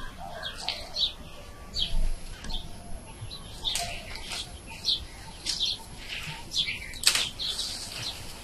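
Leaves rustling and swishing in irregular short bursts as a leafy tree branch is pulled down and shaken with a rope, with a sharper swish about seven seconds in.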